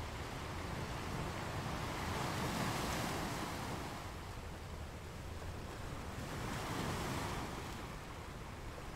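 Sea waves washing onto a shore, with a steady low rumble; the wash swells twice, about two to three seconds in and again about seven seconds in.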